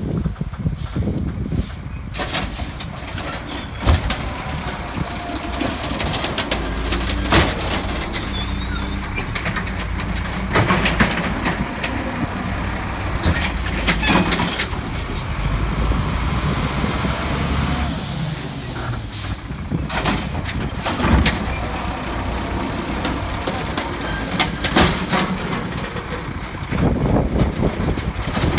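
Volvo Octo automated side-loader garbage truck working a cart: the diesel engine runs, its pitch rising and falling as the hydraulic arm lifts and tips the cart. Air brakes hiss, and there are sharp bangs of the cart and arm.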